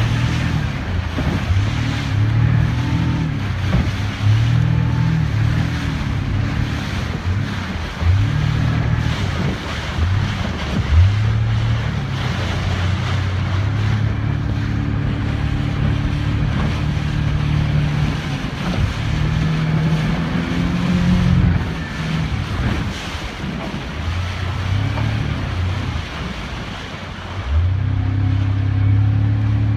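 Motorboat engine running, its speed shifting up and down several times, with wind buffeting the microphone and water splashing against the hull.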